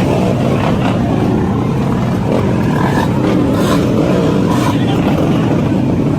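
Several motorbike engines running and revving together in a dense, steady din.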